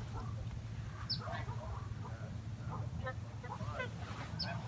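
Geese honking and calling, many short overlapping calls, with a steady low rumble underneath.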